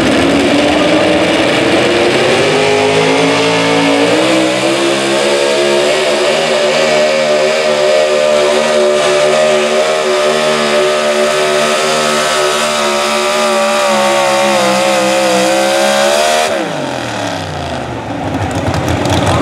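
Pulling truck's race engine at full throttle on a pull. Its pitch climbs over the first few seconds, then holds high with a slight waver for about twelve seconds, and near the end the revs drop sharply as the throttle is let off.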